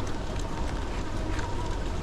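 Steady riding noise: low wind rumble on the microphone and road hiss, with a faint steady whine and scattered small ticks.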